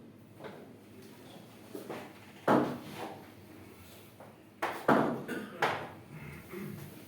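Billiard balls clacking against each other on the table: one sharp knock about halfway through, then a quick run of four knocks, each ringing out briefly.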